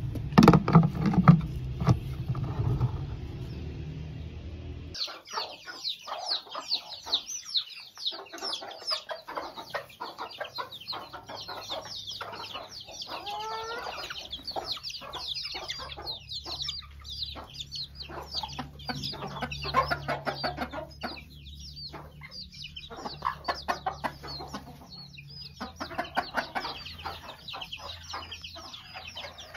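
Chicks peeping constantly in rapid high cheeps, with hens clucking among them. For the first five seconds there is instead a low rumble with a few loud knocks about a second in.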